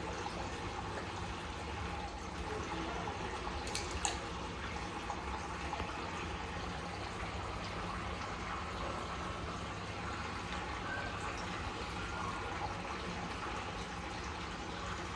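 Steady sound of water running into a fish tank from a pipe, with two brief sharp clicks about four seconds in.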